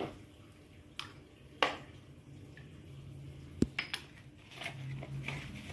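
Red dates being mixed by hand with flour and salt in a bowl: scattered light knocks and clicks of dates and fingers against the bowl, a few of them sharp.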